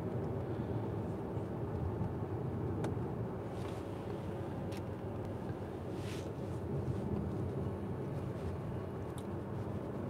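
Steady road and engine noise heard from inside the cabin of an Audi Q5 driving at moderate speed, with a few faint clicks.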